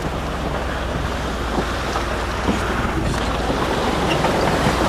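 Austin Champ 4x4 driving over rough ground, its engine running steadily under heavy wind noise on the microphone in the open cab.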